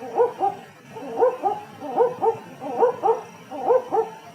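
An owl calling: short, yelping two-note hoots that slide upward in pitch, one pair about every three-quarters of a second.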